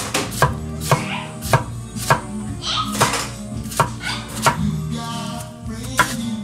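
A Takeda Classic 240 mm kitchen knife chopping cucumber on an end-grain wooden board: the blade knocks on the board about twice a second in an even rhythm.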